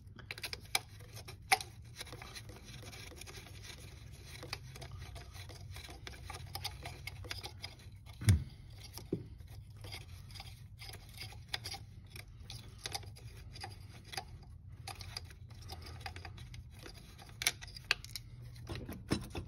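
Faint clicks and light knocks of hands working at a loosened turbocharger on a Mercedes OM642 V6 diesel, trying to shift it while something still holds it in place. One duller knock comes about eight seconds in, over a steady low hum.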